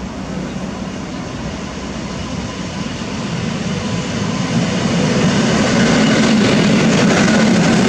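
EN57 electric multiple unit running into the station and past close by, its rumbling running noise growing steadily louder and levelling off as the carriages pass, about five seconds in.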